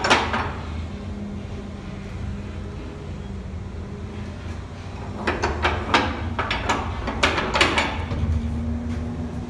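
Sharp metallic clicks and knocks of a steel shelter door's slide bolts and latch being worked: one knock at the very start, then a cluster of them about five to eight seconds in. A steady low hum runs underneath.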